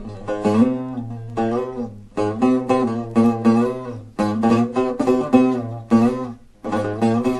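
Buzuq played solo in an improvised taqsim: quick plucked melody notes with pitch bends over a steady low drone. The phrases break off briefly about two, four and six and a half seconds in.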